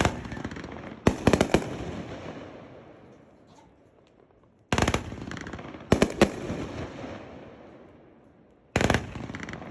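Aerial fireworks going off in three rounds about four seconds apart. Each round is a sharp bang followed about a second later by a cluster of loud reports, and the sound dies away between rounds.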